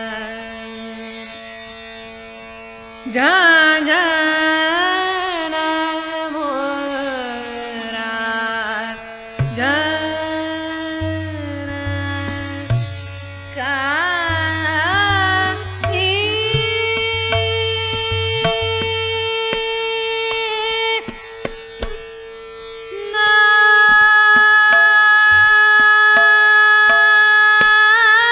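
Indian classical-style music: ornamented melodic phrases that slide and bend in pitch over a steady drone, ending in a long held note.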